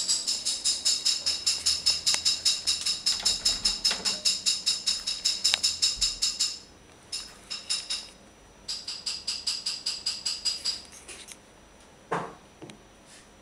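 A cat's collar bell jingling in a quick, even rhythm, about four jingles a second, shaken by the cat eating fast. It stops about six and a half seconds in, starts again for a couple of seconds, and a single dull knock follows near the end.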